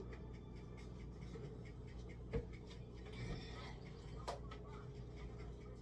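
Kitchen items handled at an open refrigerator: two sharp knocks, about two and a half and four seconds in, over a faint steady hum.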